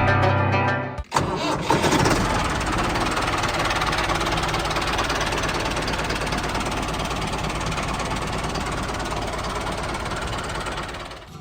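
A small engine starts about a second in and then runs steadily.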